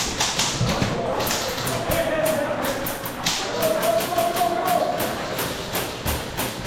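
Airsoft guns firing: a rapid, irregular string of sharp cracks and clicks from shots and BB hits.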